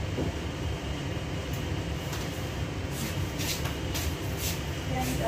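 Kitchen range hood fan running with a steady low hum, with a few light clinks of dishware in the second half.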